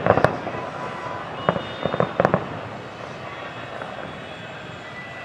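Fireworks going off: a quick run of sharp bangs and cracks in the first half, stopping a little before halfway, then only steady background noise.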